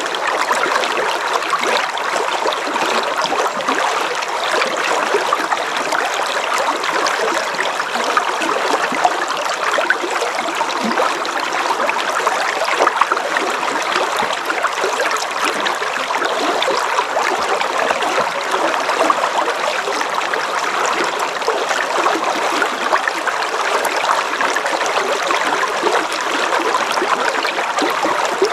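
A river flowing steadily: an even rush of water with many small splashes running through it.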